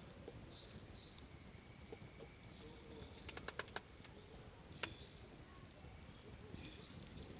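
Softwood campfire crackling faintly: a quick run of sharp pops about three seconds in and a single pop about a second later, over a low steady background.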